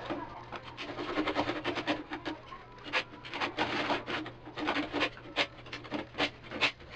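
Hand saw cutting through CPVC water pipe, short rasping strokes about two or three a second.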